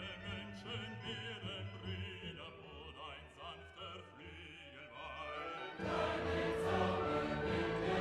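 Background music with a singing voice that wavers in pitch over an accompaniment, swelling into a fuller, louder passage about six seconds in.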